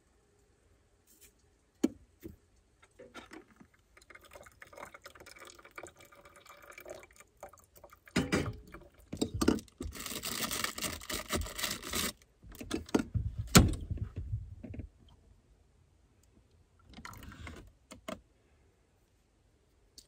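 Making pour-over coffee: small clicks and scrapes of a spoon scooping coffee grounds from a tin into a metal cone filter. About ten seconds in comes a couple of seconds of water poured into the filter, among louder knocks of things being handled.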